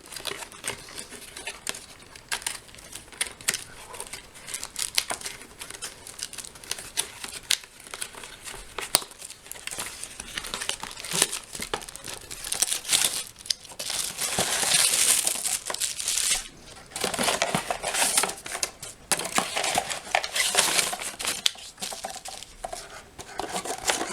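Product packaging being opened and handled: crinkling and rustling of wrapping with many small clicks and scrapes, growing louder and busier about halfway through.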